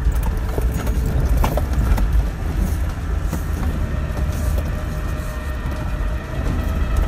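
Land Rover Defender Td5 diesel driving slowly over a rutted, muddy off-road track, heard from inside the cab: a steady low engine and drivetrain rumble with scattered knocks and rattles from the body and suspension over the ruts.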